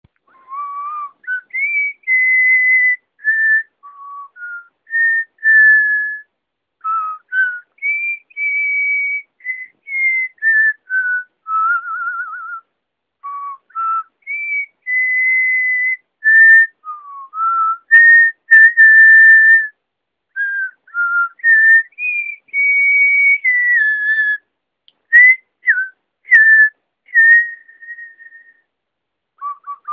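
A person whistling a tune: a string of short and held notes, some with a warble.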